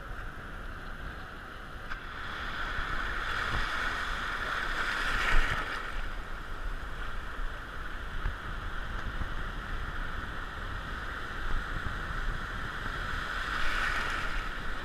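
Shallow surf and whitewater washing around a camera held at water level, heard as a steady muffled rush that swells about two seconds in and again near the end, with one sharp slap about five seconds in.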